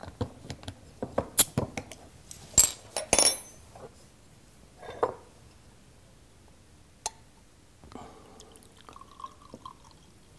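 Sharp clinks and knocks of a glass bottle and glassware being handled in the first few seconds, then beer pouring from the bottle into a glass near the end.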